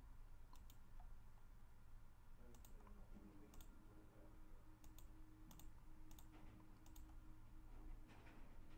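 Faint computer mouse clicks, about ten scattered through, some in quick pairs, over a low steady hum.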